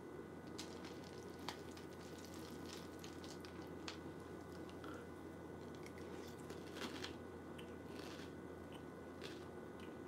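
A spoon clinking and scraping in a glass bowl of Trix cereal soaked in red wine, then a mouthful being chewed, with irregular crunches and wet squishes. A low steady room hum runs underneath.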